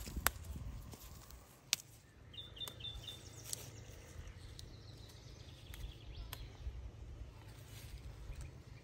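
Quiet garden ambience over a low rumble. A bird gives a quick run of three or four chirps about two and a half seconds in, and a few sharp clicks and rustles come from hollyhock flowers being plucked by hand.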